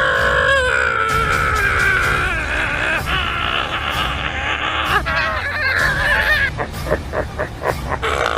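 A man screaming in long, held screams, breaking into short repeated cries near the end.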